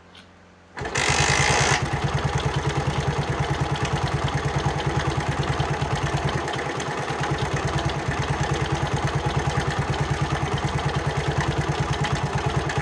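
Honda CD 70's single-cylinder four-stroke engine starting about a second in, louder for a moment, then settling into a steady idle with an even, rapid beat.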